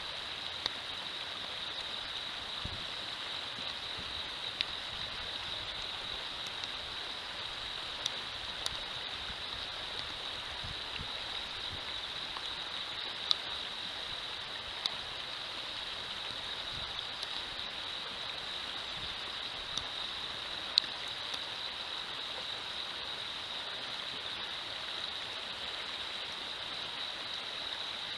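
Shallow river riffle running steadily over stones, with a constant high-pitched tone over it and a few sharp clicks scattered through.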